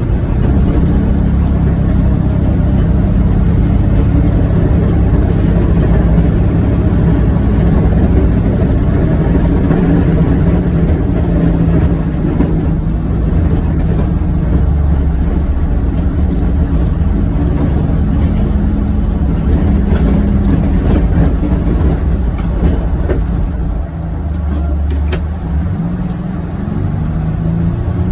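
John Deere Gator XUV835M utility vehicle's engine running steadily as it drives, with a brief easing off about three-quarters of the way through.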